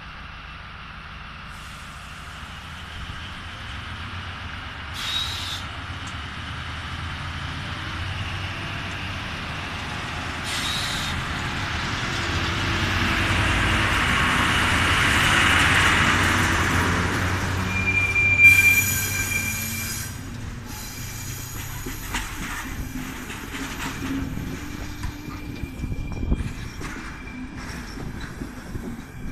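ČD class 750.7 diesel locomotive pulling away and running past, its engine growing louder as it passes, followed by passenger coaches rolling by. About 18 seconds in, a short, high wheel squeal is the loudest moment; then come repeated clicks of the coach wheels over the track.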